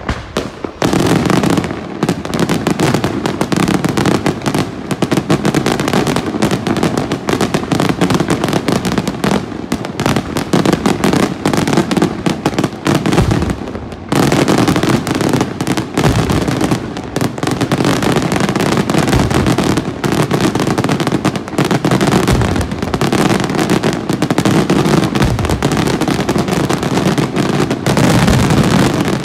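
Daytime aerial fireworks display: a dense, nearly unbroken barrage of rapid bangs and crackling as shells burst into smoke puffs, starting about a second in, with a brief let-up about halfway through.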